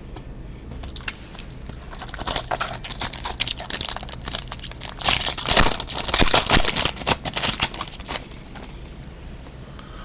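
Foil football-card pack wrapper being torn open and crinkled by hand, in a run of crackling rustles that are loudest a little past halfway and die away near the end.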